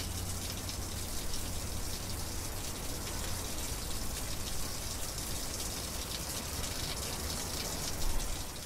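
Steady splashing of fountain water from a generated virtual-world soundscape, with a low rumble underneath.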